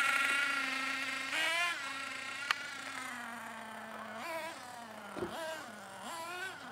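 Small two-stroke engine of a radio-controlled truck buzzing as it drives off, its pitch rising and falling with the throttle and fading with distance. The engine is new and being run in. A single sharp click about two and a half seconds in.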